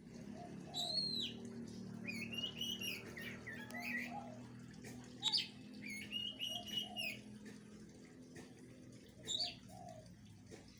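A bird calling in short phrases of arched, whistled notes, repeated every second or two, over a low steady hum.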